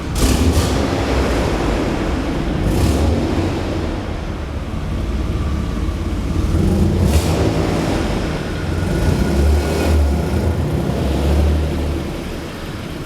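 BMW E36 328i's stock 2.8-litre straight-six running through its standard exhaust, the engine note swelling and easing throughout. Brief rushing noises come in near the start, about three seconds in and about seven seconds in.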